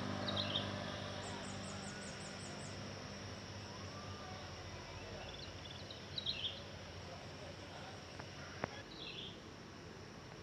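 Outdoor roadside ambience: a low vehicle engine hum fades out over the first couple of seconds while small birds give short chirps near the start, around six seconds in and again near nine seconds. A rapid, very high ticking trill sounds briefly near the start, and there is a single sharp click just before nine seconds.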